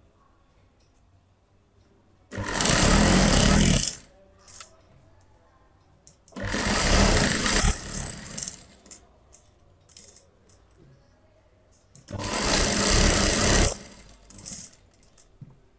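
Industrial single-needle lockstitch sewing machine stitching fabric in three short runs of about a second and a half each, with pauses between while the fabric is turned at the corners to sew around all four edges. Small clicks and rustles of the cloth being handled fill the pauses.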